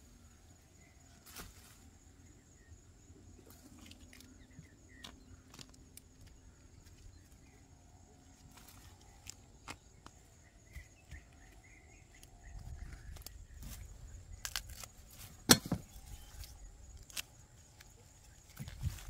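Faint rustling of leaves and soil as rhizome clumps are pulled up and broken apart by hand, with scattered small knocks. One sharper knock comes about three-quarters of the way through.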